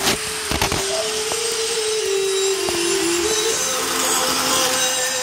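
HO scale diesel locomotive running on the track, its small electric motor and gears giving a steady whine that dips a little in pitch partway through, with a few sharp knocks at the start.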